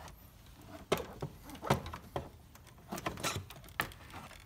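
Several sharp, irregularly spaced plastic clicks and knocks: the clips of a plastic under-hood cover over the battery snapping free and the cover rattling as it is lifted off.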